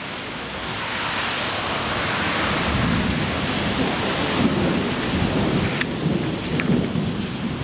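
Steady hiss of rain falling, with a low rumble that builds from a couple of seconds in.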